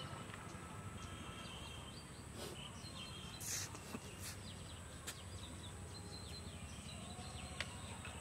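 Small birds chirping over a low, steady outdoor background rumble, with a brief hissing burst about three and a half seconds in.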